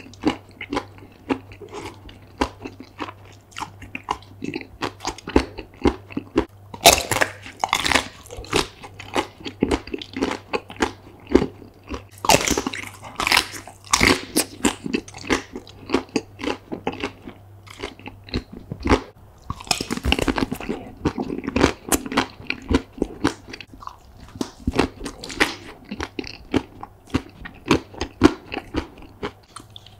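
Close-up biting and chewing of chocolate-coated Snickers ice cream bars: rapid crunching and crackling of the chocolate shell, with louder bursts of crunching several times.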